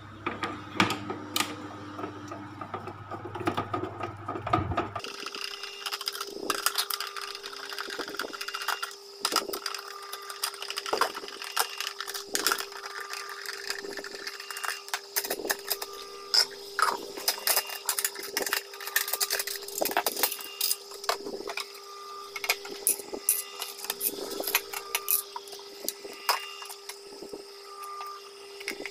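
Screwdriver working the screws of a food processor's plastic base and the housing being handled and pried open: repeated small clicks, scrapes and knocks of plastic and metal. A steady hum runs under it from about five seconds in.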